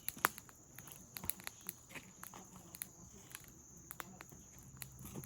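Wood campfire crackling: irregular sharp snaps and pops, several a second, with one louder snap just after the start.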